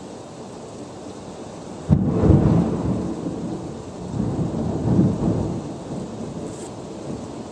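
Thunder: a sudden crack about two seconds in, then a deep rolling rumble that swells again and dies away over several seconds, over a steady hiss.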